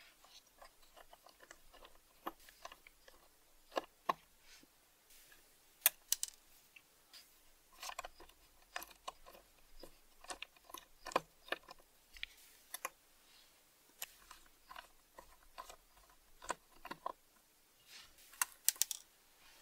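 Small screwdriver turning a rusty slotted screw in the side of an old steel meter case: irregular small metallic clicks and scrapes, with the case handled in the hand.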